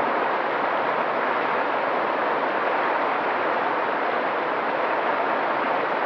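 Mountain stream flowing over rocks: a steady, even rush of water.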